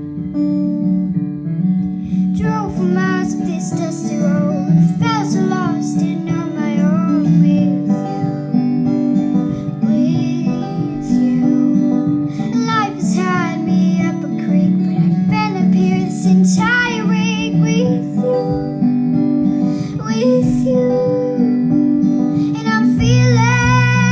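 A song in which strummed acoustic guitar accompanies a young girl singing. The voice comes in about two seconds in, and a deeper bass part joins near the end.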